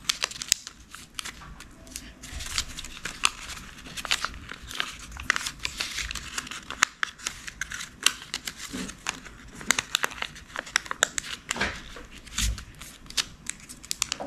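Origami paper being folded and creased by hand, crinkling and rustling with many short crackles as the folds are pressed down.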